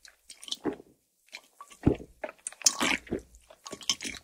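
Close-miked gulping and swallowing as beer is drunk from a can: a run of short, irregular swallows with brief pauses between them.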